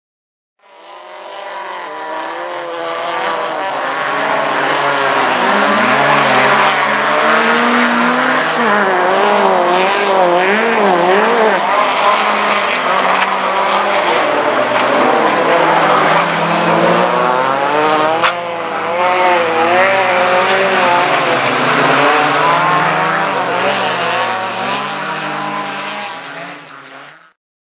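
Several folkrace cars' engines revving hard on a gravel track, their pitches wavering up and down as the cars accelerate and lift through the corner, over tyre and gravel noise. A single sharp knock comes about two-thirds of the way through.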